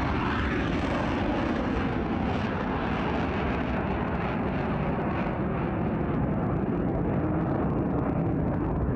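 Ballistic missile's rocket motor, a steady, deep rushing rumble as the missile climbs after launch.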